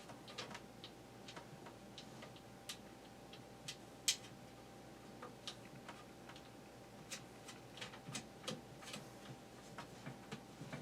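Irregular small clicks and taps of hand work on a box fan's power switch and housing, with one sharper click about four seconds in and a quicker run of clicks a few seconds later.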